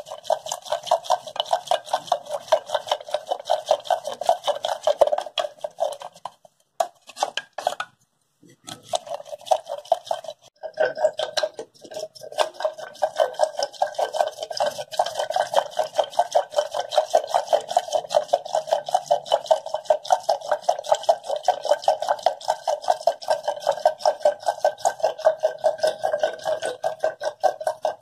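Wooden hand churner (ravi) twirled back and forth in a steel pot of curd and sugar, a fast, even rhythm of swishes and taps against the pot, blending the sugar into the curd for lassi. It stops about six seconds in, picks up again about two seconds later, and pauses once more briefly.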